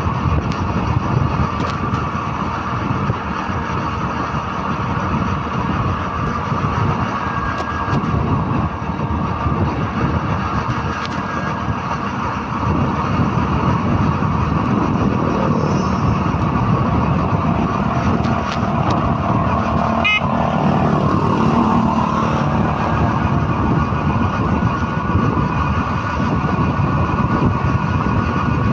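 Steady running of a motor vehicle that the recording phone rides on, with road and wind noise, a little louder from about the middle on. A short sharp click about two-thirds of the way through.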